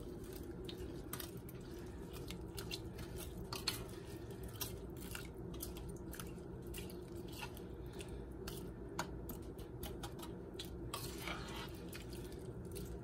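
A spoon stirring raw rice, water, diced bacon and vegetables in an electric rice cooker's inner pot: soft wet scraping and scattered small clicks at irregular intervals, over a steady low hum.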